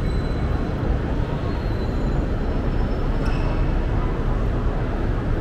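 Steady city street ambience: a constant low rumble of traffic with the murmur of a crowd of people.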